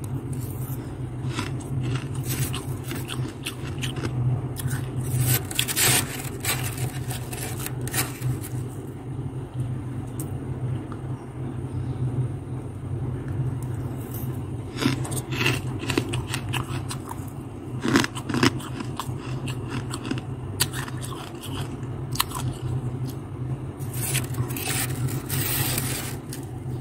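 Metal spoon scraping and crunching through crisp freezer frost, in several bursts of crackly scraping, with a steady low hum underneath.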